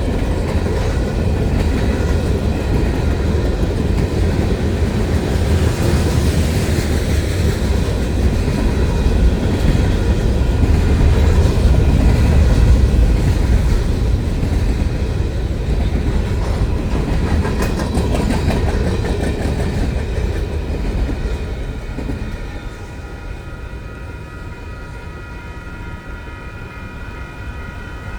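Train passing close by: a steady heavy rumble with wheel clatter on the rails, loudest about halfway and dropping off sharply about three-quarters of the way through as it moves away.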